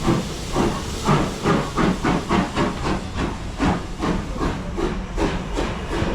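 Steam locomotive pulling away, its exhaust chuffing about two to three beats a second and slowly quickening, over a steady hiss of steam.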